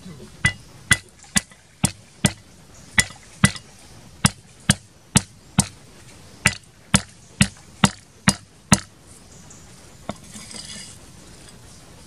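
A steel cleaver striking down on a wooden chopping block about seventeen times, roughly two blows a second, crushing garlic cloves and bruising lemongrass stalks. The blows stop about nine seconds in, and a short scrape follows.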